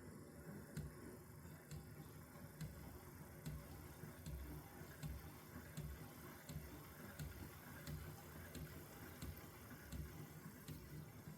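Hornby 'Black 5' model steam locomotive running quietly on a test track, its mechanism nearly silent: only faint, evenly spaced ticks, roughly one a second, over a low hum.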